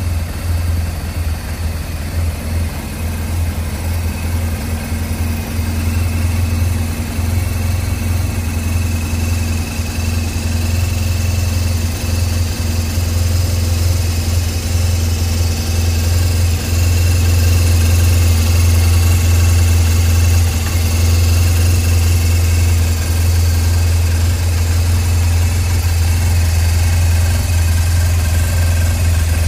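BMW R1200 GS flat-twin boxer engine idling steadily, a little louder from about halfway through.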